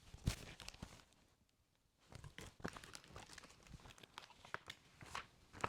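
Faint rustling and crinkling of picture-book pages being handled, with scattered small clicks. One sharp click comes just after the start, and there is a short near-silent gap before the handling noises resume.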